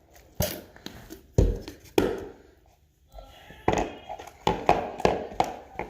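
Freshly activated face-wash slime being mixed and squished by hand, giving irregular wet smacks and sticky clicks: a few spread out at first, then a quicker run of them in the second half.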